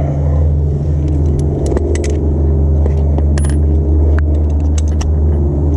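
Scattered sharp metal clicks and clinks of a socket wrench snugging the oil drain plug of a Hyundai Tucson back in, over a steady low hum.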